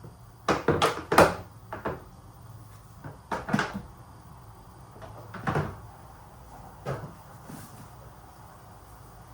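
Kitchen clatter of things being handled: a quick run of sharp knocks and clacks in the first two seconds, then single knocks every second or so, fading out near the end.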